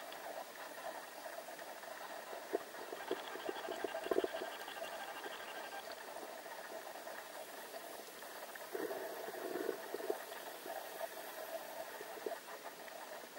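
Underwater ambience heard through a camera housing: a steady, muffled water hiss with a faint hum, and clusters of soft clicks and knocks a few seconds in and again near two-thirds of the way through.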